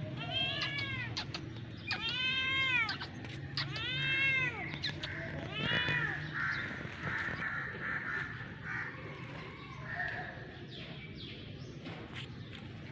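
A cat meowing: four long meows within the first six seconds, each rising and then falling in pitch.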